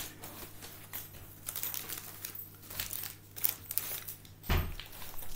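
Paper crinkling and rustling in quick irregular bursts, as when a wrapped present is being opened, with one louder thump about four and a half seconds in.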